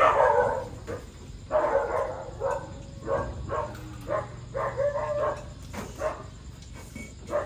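Repeated short, high-pitched animal cries, yelps and whines in quick bursts, with a low steady hum partway through.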